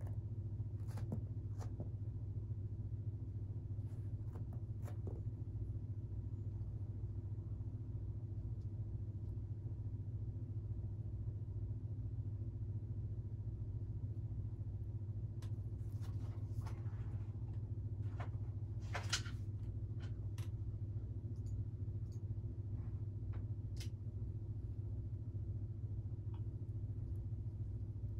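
A steady low mechanical hum, with scattered faint clicks and a short rustle about two-thirds of the way in.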